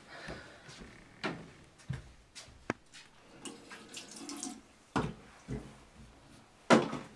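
Bathroom sink tap running briefly amid the knocks and clicks of a mirrored medicine cabinet door being handled. The loudest knock comes near the end.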